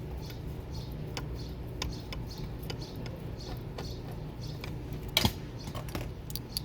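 Small metal clicks and taps of hand tools and fittings being worked on the motor's crank assembly, over a steady low hum, with one louder knock about five seconds in.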